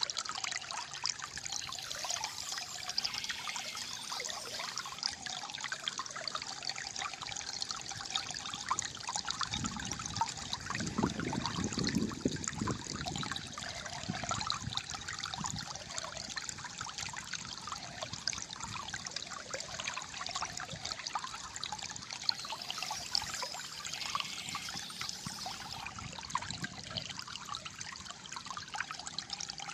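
A calm stream of flowing water trickling and gurgling steadily, with a fuller, deeper gurgle for a few seconds in the middle.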